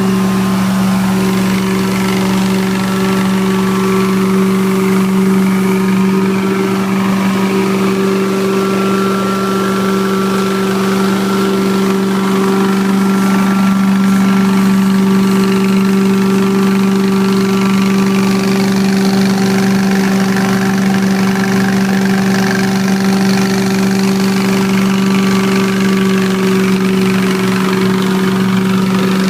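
Carpet-cleaning extraction equipment running steadily: a loud, continuous motor hum that holds one pitch throughout.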